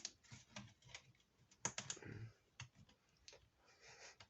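Quiet plastic clicks and snaps from a laptop's bottom cover as its clips are pried loose, with a couple of louder snaps about a second and a half in and brief scraping of plastic.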